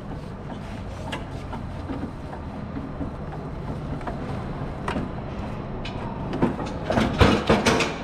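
Electric pallet jack running across a concrete floor: a steady low motor hum with scattered clicks and rattles, and a louder run of knocks and rattling near the end.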